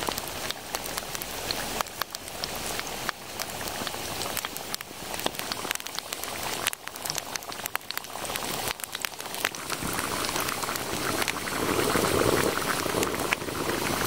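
Steady dense patter and crackle of sleet falling around a wood campfire. Late on it grows louder with a thicker bubbling as the turkey chili, boiling hard in a cast iron Dutch oven in the coals, comes close.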